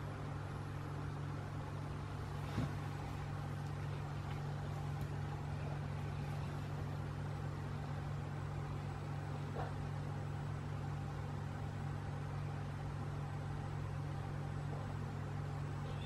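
A steady low mechanical hum, unchanging throughout, with a single short knock about two and a half seconds in.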